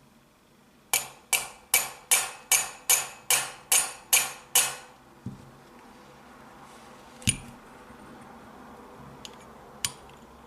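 Ten quick knocks on a Smith & Wesson 686 revolver's frame, about three a second, each with a short ring, to jar the side plate loose. A softer knock follows, then a few separate sharp clicks of metal parts near the end.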